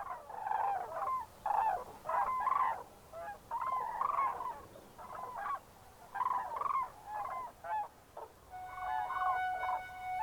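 A flock of common cranes calling, bouts of loud trumpeting calls one after another. Near the end, soft flute-like music comes in under the calls.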